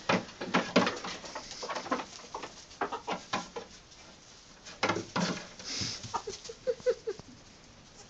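Small goat hooves tapping and scuffling on a wooden bench and wood-shavings bedding, a scatter of short sharp clicks. About three-quarters of the way through comes a quick run of five soft low clucks from a hen.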